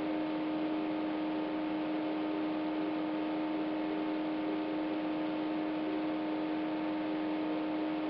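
Steady electrical hum with hiss: one strong low tone and several fainter higher tones, unchanging throughout.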